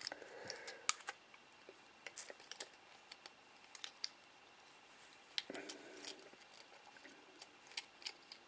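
Faint, scattered sharp plastic clicks and taps from a Hubsan X4 H107L mini quadcopter and its white battery connector being handled and worked into place by hand.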